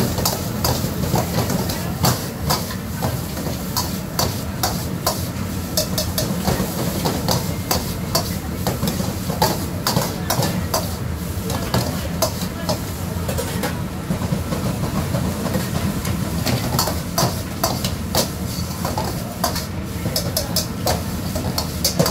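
Metal ladle and spatula clanking and scraping against a steel wok as fried rice is stir-fried and tossed, in quick irregular strikes over a steady low hum.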